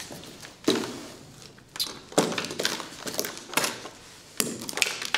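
Plastic markers and highlighters clattering and clicking on a desk as they are picked up, sorted and put down: a string of sharp knocks, several a second at times.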